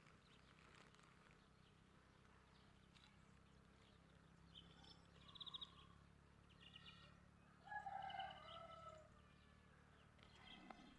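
Faint, scattered bird calls and chirps over a low steady hum, with a longer, lower call about two-thirds of the way through.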